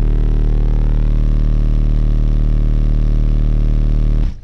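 Car-audio subwoofer system playing a sustained deep bass test tone (an SPL 'burp') at full power, registering 153.1 dB on the SPL meter. The tone holds steady, then cuts off suddenly near the end.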